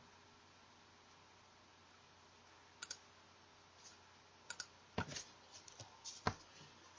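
Computer mouse clicking over faint room hiss: a quick double click about three seconds in, then a run of clicks and a few heavier knocks in the last two seconds.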